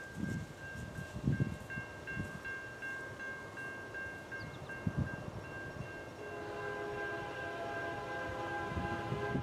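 Grade-crossing warning bell ringing rapidly and steadily. About two-thirds of the way through, the distant multi-note air horn of an approaching CN freight's lead locomotive, a GE C44-9W, comes in and holds. A few low thumps sound over it.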